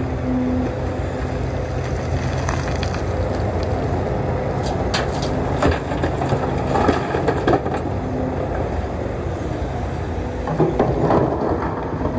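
Sumitomo SH300 excavator's diesel engine running steadily under hydraulic load, with stones and rock clattering in bricks of sharp knocks about halfway through and again near the end as stony material is dug and loaded.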